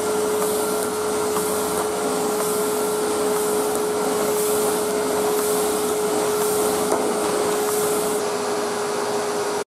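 Vacuum cleaner running with a steady whine over a constant rush of air, its floor head worked over a shaggy rug to suck up sprinkled bicarbonate-of-soda carpet powder. It stops abruptly near the end.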